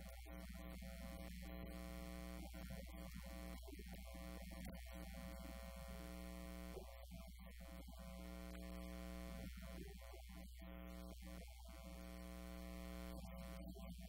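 Steady electrical mains hum: a low drone with a stack of steady buzzing tones above it, running unchanged.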